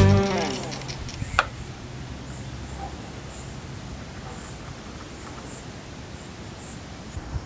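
Quiet dusk outdoor ambience: a low steady rumble under faint high insect chirps that repeat about once a second, with one sharp click about a second and a half in.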